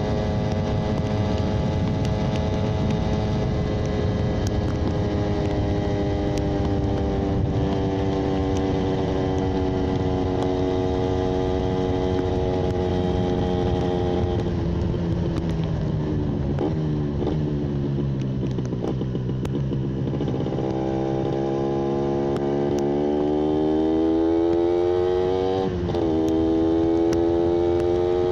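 Yamaha 125ZR's single-cylinder two-stroke engine under way: the revs climb slowly for about the first half, fall away for several seconds, then pull up again with a brief dip about three-quarters of the way through, like a gear change.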